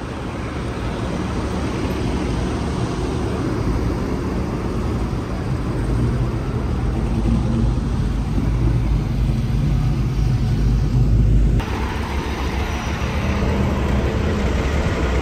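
Deep, steady engine rumble of heavy trucks that grows slowly louder, then changes abruptly about eleven seconds in to a thinner, slightly quieter rumble with more hiss.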